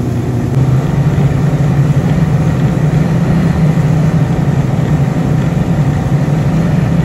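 Small boat's outboard motor running steadily at speed, with a steady low hum, a little louder about half a second in.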